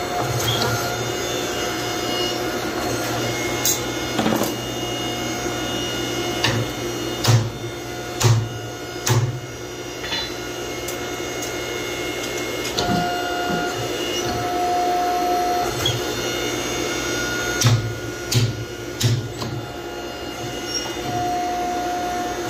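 Hydraulic forging press running with a steady pump hum and whine while it squeezes hot steel, its whine growing louder twice for a couple of seconds. Sharp metallic clanks with low thumps come in short runs, several a few seconds in and several more about three-quarters of the way through.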